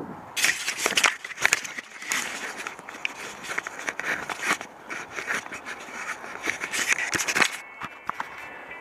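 Fingers handling a helmet-mounted action camera right at its microphone: dense, irregular scraping and crackling handling noise that stops about a second before the end.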